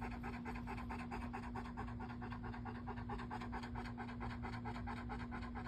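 Yellow Labrador retriever panting fast and steadily, about five breaths a second, over a steady low hum.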